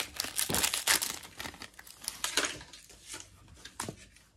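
Foil Pokémon booster pack wrapper crinkling and tearing open, followed by fainter rustles as the cards are slid out and handled.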